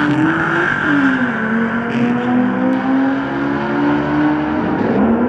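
Car engine at full throttle in a drag strip launch, revving up with a drop in pitch at a gear change about half a second in, then climbing again.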